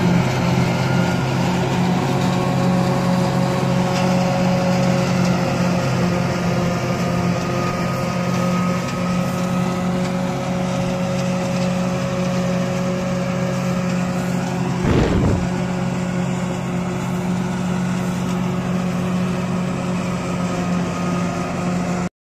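Claas tractor engine and its PTO-driven Özen İş Kobra forage chopper running steadily under load while chopping grass and blowing it into a trailer, a constant droning hum. A brief louder swell comes about fifteen seconds in.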